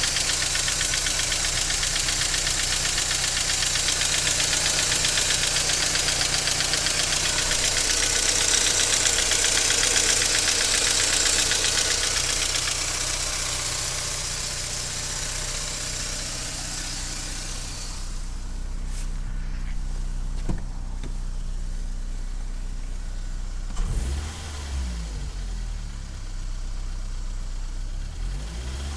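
BMW E46 318i's 1.9-litre four-cylinder engine idling cold with a fast, loud metallic rattle from the valvetrain, which stops abruptly about 18 seconds in, leaving a quieter idle. The clatter comes from worn hydraulic lifters, which replacing cured. A thump about 24 seconds in, followed by a change in the engine note.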